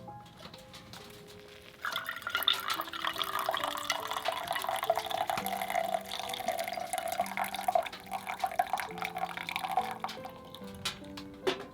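Water poured in a steady stream, starting about two seconds in and stopping about ten seconds in, over soft background music.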